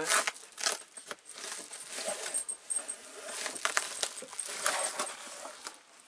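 Padded paper mailer rustling and crinkling as it is pulled open by hand and two small cardboard boxes are slid out, with irregular crackles and light clicks throughout.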